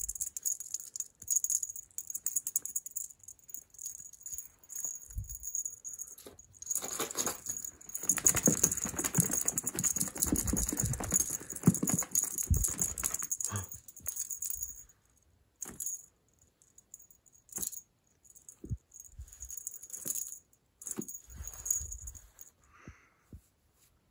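A cat wand toy rattling and jingling in stop-start bursts as it is shaken and batted about. A longer, louder spell of scuffling and rustling comes around the middle.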